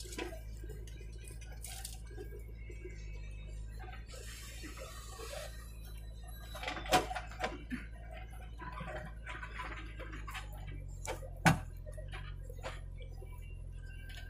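A JCB backhoe loader's diesel engine runs with a steady low hum, with the tractor's engine idling alongside. A few sharp metallic clanks come from the backhoe's bucket as it digs soil, the loudest about 7 and 11½ seconds in.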